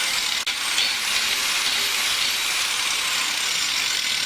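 Electric angle grinder running free with no load, a steady high-pitched whirring hiss that breaks off briefly about half a second in.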